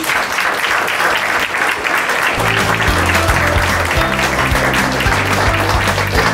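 Audience applauding. About two seconds in, music with a bass line and a steady beat comes in under the clapping.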